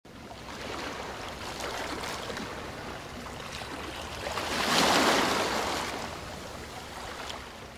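Sea waves washing onto a shingle beach, with one wave surging loudest about five seconds in and then drawing back.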